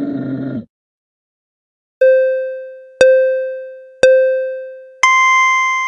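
An animal's grunting call cuts off about half a second in. After a short silence come three short electronic beeps a second apart, then a higher, longer beep: a quiz countdown tone.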